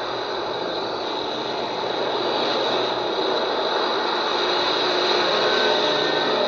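Library of Congress cassette player playing back a tape through its speaker: a dense, steady rushing noise with hiss, growing a little louder toward the end.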